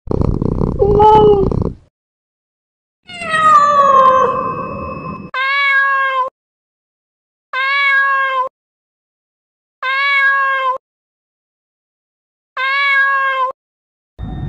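Domestic cat meowing, six calls with silence between them: two longer meows, the second falling in pitch, then four short, identical meows about two seconds apart.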